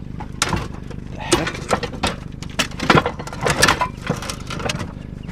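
Hard objects knocking and clattering against each other, a dozen or so irregular knocks, as junk is loaded into a car's trunk, over the steady low hum of an idling engine.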